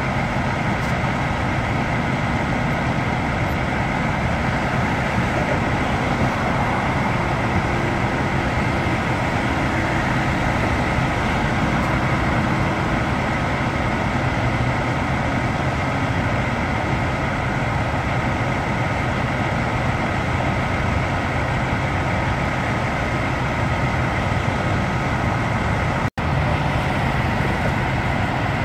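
Heavy truck engine running steadily, a continuous low rumble with a faint constant whine above it; the sound drops out for an instant near the end.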